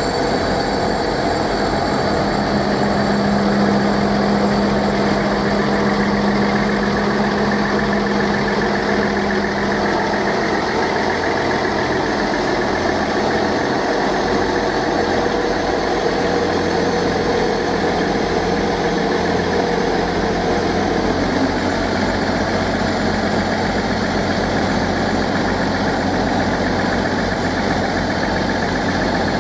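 Coupled Class 158 and Class 159 diesel multiple units pulling slowly out, their underfloor diesel engines running with a steady drone. A low hum is heard in the first third, and a higher hum later on.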